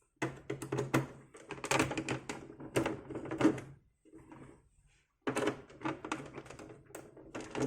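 Plastic computer case being handled on a bench: a rapid, uneven clatter of clicks and knocks, in two runs with a pause of about a second in the middle.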